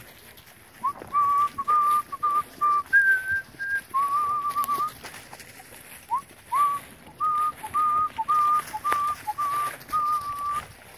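A person whistling a tune: a string of short and held clear notes, mostly at one pitch with a few higher ones early on, with a brief pause midway.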